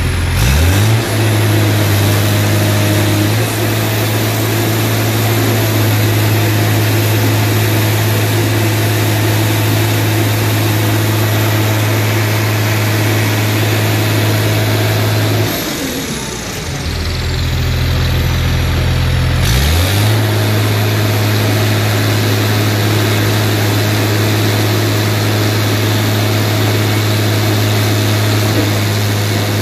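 Hydraulic power unit of a Presse Bull Genius scrap baler running with a steady low hum. Its pitch slides up about half a second in, drops and dips quieter around fifteen seconds in, then slides back up near twenty seconds as the press hydraulics change load.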